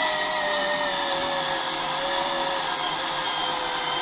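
Fanttik NEX L1 Pro cordless electric screwdriver driving a long screw into a wooden block: a steady motor whine whose pitch falls slowly as the screw goes deeper and the load rises.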